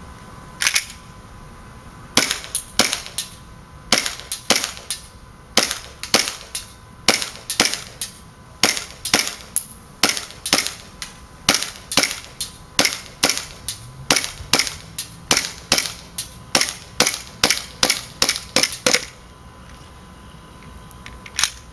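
WE Glock 18C gas blowback airsoft pistol, run on propane in 18-degree cold, firing single shots: dozens of sharp cracks at roughly two a second, the first followed by a short pause, stopping about 19 seconds in, with one more shot near the end. Despite the cold, the gas keeps the pistol cycling through the entire magazine.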